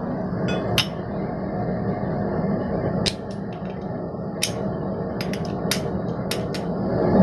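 Blacksmith's hammer striking hot steel bar stock on tooling at the anvil: about ten sharp, irregularly spaced blows with pauses between, over a steady background hum.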